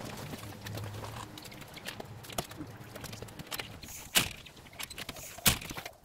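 Hands handling pieces of EVA foam on a cutting mat over newspaper: scattered rustling and light knocks, with two sharp knocks about four and five and a half seconds in.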